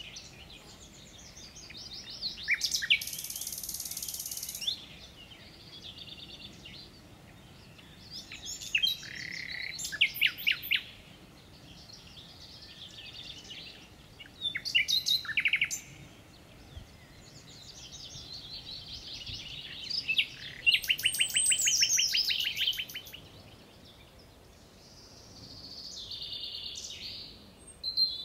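Several songbirds singing, each song a short phrase, several of them fast trills, one every few seconds.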